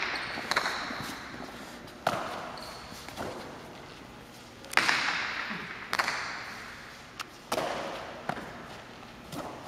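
Jai alai pelota cracking against the court walls and floor in a rally: a series of sharp hits about every one to one and a half seconds, each ringing on in the large hall.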